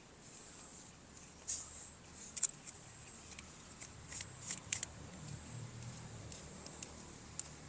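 Faint, irregular clicks and taps of small plastic toy parts or packaging being handled, the sharpest about two and a half and nearly five seconds in, over a faint steady high whine.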